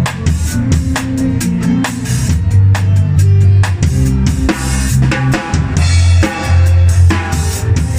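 A drum kit played with a band: kick drum, snare and cymbal hits over held, changing bass notes.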